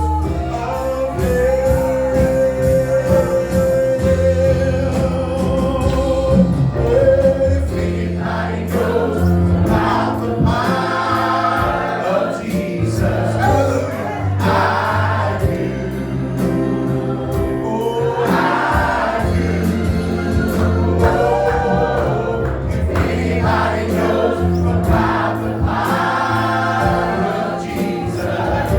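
Gospel choir singing over live instrumental accompaniment, with a steady bass line and a light percussion beat.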